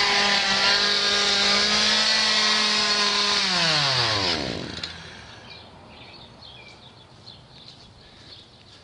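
Chainsaw engine running at steady high revs, then winding down and stopping about four seconds in. Faint bird chirps follow.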